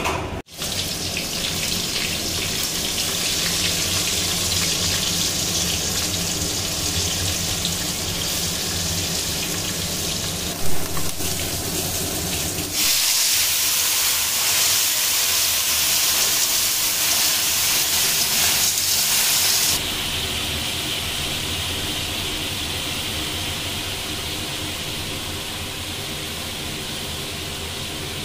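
Snails frying in hot mustard oil in a kadai, a steady sizzle with a sharp knock about eleven seconds in. The sizzle grows louder and hissier for several seconds from about a third of the way through, as the snails are stirred.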